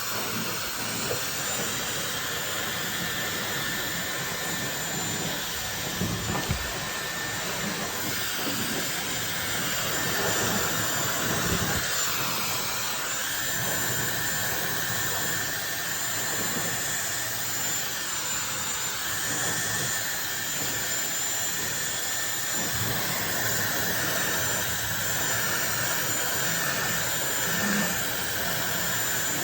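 Dyson Supersonic hair dryer blowing steadily on its strongest airflow setting: a continuous rush of air with a thin, high whine. The rush swells and dips as the dryer is moved around the hair, with a few short low thuds of air buffeting.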